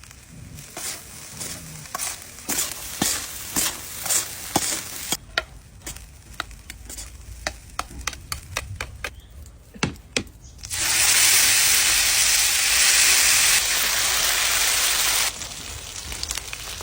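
Egg fried rice being stir-fried in a pan: a spatula clacks against the pan many times over a low sizzle. About eleven seconds in, a loud, steady sizzle starts, lasts about four seconds and cuts off suddenly.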